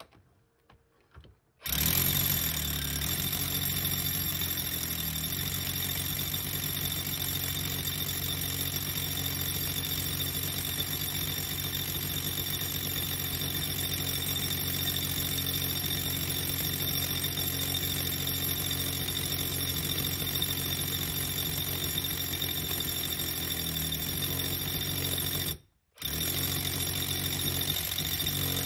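Power drill boring into brick, running steadily from about two seconds in, cutting out briefly near the end and starting again.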